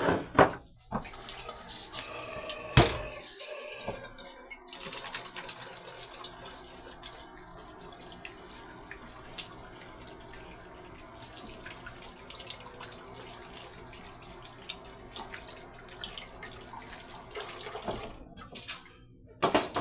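Battered chicken deep-frying in hot oil, a steady sizzle full of small crackles, with a couple of sharp knocks about the start and about three seconds in.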